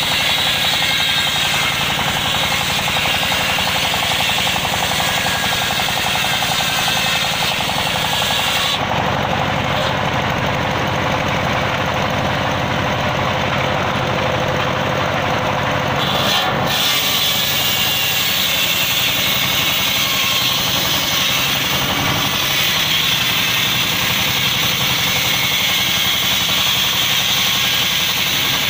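Large sawmill circular saw ripping a teak log lengthwise, its blade and drive running under load in a steady mechanical din. The sound's character shifts for several seconds in the middle, then returns.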